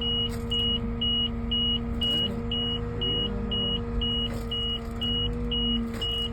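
Caterpillar excavator running with a steady engine and hydraulic hum, under a high-pitched warning beeper sounding about twice a second, with a brief change in the hum as the machine moves.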